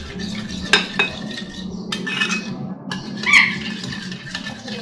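A metal spoon stirring a thick yogurt marinade in a glass bowl, scraping and clinking against the glass, with a couple of sharp clinks in the first second. A steady low hum runs underneath.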